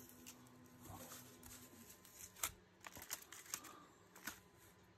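Faint crinkling and a few sharp ticks as masking tape is peeled off a small painted diecast car body, the loudest tick about halfway through.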